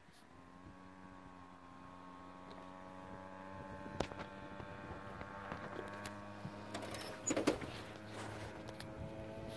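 Small 49cc two-stroke pocket ATV engine running at a steady pitch, growing louder as it approaches. A sharp click comes about four seconds in and a short cluster of clicks around seven seconds.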